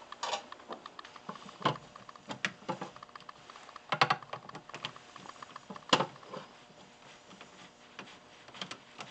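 Scattered small clicks and metallic taps of a screwdriver on a snowmobile's battery terminals as the battery is connected, with a few louder knocks.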